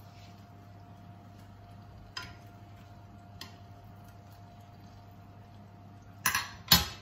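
Wooden spatula working salmon fillets in a frying pan, with a few light clicks and then two sharp knocks near the end, over a faint steady hum.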